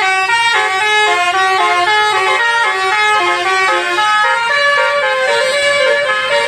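Basuri multi-tone 'telolet' bus horn playing a melody of short notes that step up and down in quick succession, continuously and loudly.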